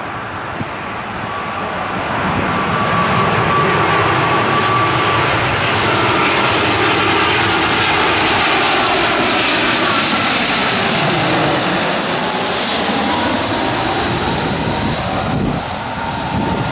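Airbus A319 airliner's twin jet engines on final approach, passing overhead: a steady jet noise with a whine that grows louder over the first few seconds, turns hissier and higher as the plane goes overhead a little past the middle, then eases slightly as it moves away.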